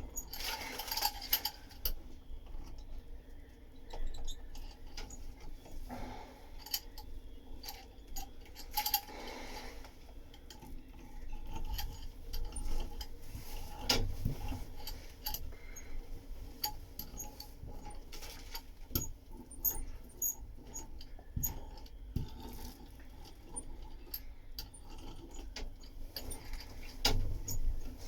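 Laminating roller being worked over resin-wet fibreglass, making irregular light clicks and rattles as it rolls out air bubbles and excess resin.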